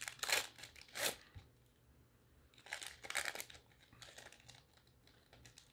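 Shiny foil trading-card pack being torn open by hand and its wrapper crinkled back from the cards, in several short crackling bursts.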